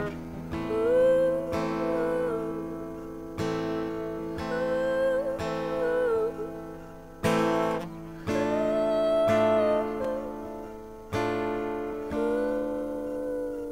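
Live acoustic guitar strummed in slow chords a few seconds apart, with a woman singing a long wordless vocal line over them.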